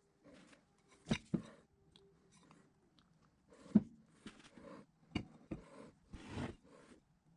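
Irregular knocks, clicks and rubbing of electric motor parts being handled on a workbench, as the rotor shaft is gripped and the end bell is picked up and turned over. Two sharp knocks stand out, about a second in and near four seconds in.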